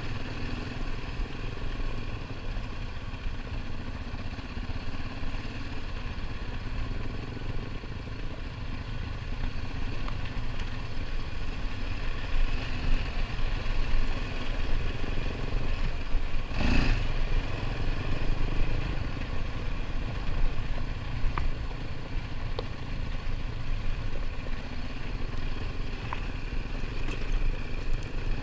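ATV engine running as the machine rides along a dirt trail, its loudness rising and falling with the throttle. About two-thirds of the way in there is one brief, louder burst of noise.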